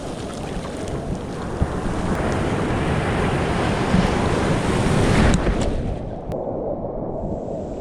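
Surf washing up the shore: a wave's rush builds to a peak about five seconds in and falls away, with wind buffeting the microphone throughout.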